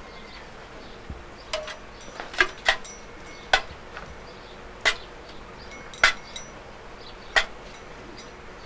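A metal measuring mug clinking against steel milk cans as milk is scooped and measured out: about seven sharp, ringing clinks spaced a second or so apart.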